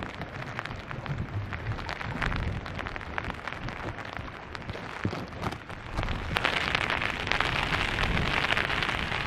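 Rain falling steadily, with many individual drops tapping, and a low rumble of wind underneath. The rain grows heavier about six seconds in.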